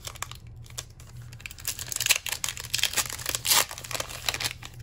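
Foil Pokémon booster pack wrapper crinkling in the hands and being torn open: a rapid crackle that grows much louder from about a second and a half in.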